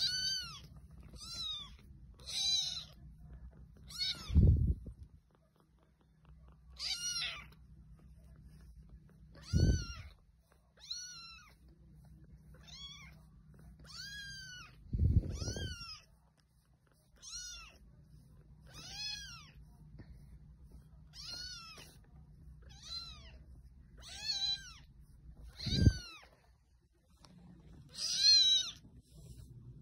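A one-week-old kitten mewing over and over: about seventeen thin, high cries that rise and fall in pitch, roughly one every second or two. Four dull low thumps fall between the cries.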